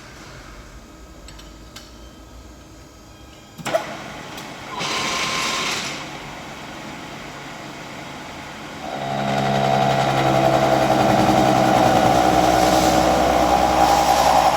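Milling machine: a low hum, a sharp clank about four seconds in, and a brief rushing noise a second later. From about nine seconds the machine runs loud and steady with a whine of several tones.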